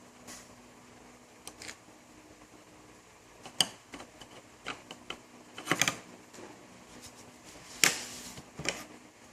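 Scattered sharp clicks, taps and short rustles of packets and utensils being handled during instant-noodle preparation, the loudest a little before 4 s, around 6 s and near 8 s, over a faint steady hum.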